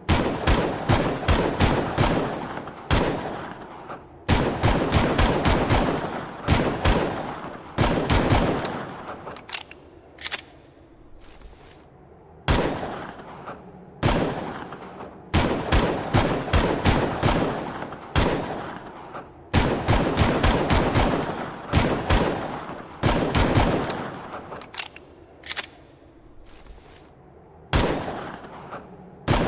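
Longslide pistol firing in quick strings of several shots, with an occasional single shot between them. Each shot is sharp and followed by a ringing, echoing tail.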